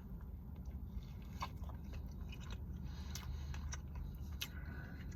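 A person chewing a mouthful of a small cheeseburger slider, with scattered soft clicks and smacks of the mouth.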